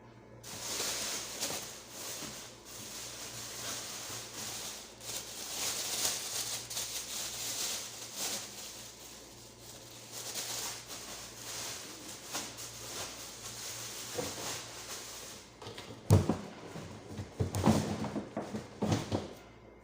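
Rustling and handling noises from items being put into and arranged in a fridge, followed by a run of sharp knocks and clatters near the end.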